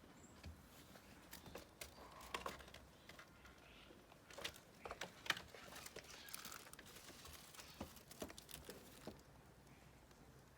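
Faint bird sounds: irregular sharp clicks and ticks, with a few short soft calls, spaced unevenly.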